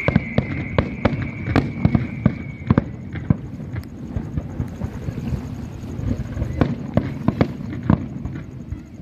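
Fireworks display: an irregular rapid series of sharp bangs from aerial shells bursting. The bangs thin out in the middle and pick up again near the end.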